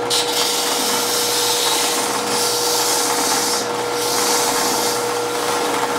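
Drill press running with a steady hum while 200-grit sandpaper is held against the O-ring slot of a spinning cast fiberglass-resin piston, making a loud sanding hiss. The hiss starts just after the beginning and eases briefly twice.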